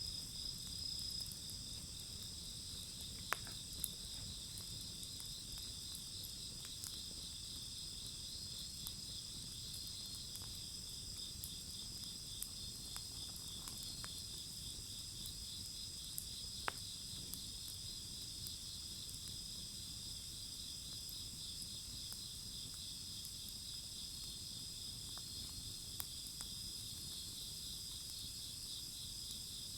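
Wood fire crackling, with a few sharp pops scattered through, over a steady high-pitched pulsing chorus of insects.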